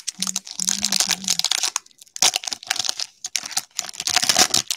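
A trading-card pack's plastic wrapper being torn open and crinkled in quick, rapid rustles, with a short lull about two seconds in.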